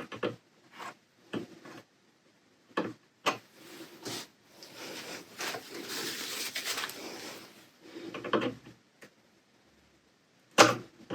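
Hands working parts loose on a Cricut Maker: scattered small clicks and knocks of plastic and metal, with a few seconds of rubbing or scraping in the middle.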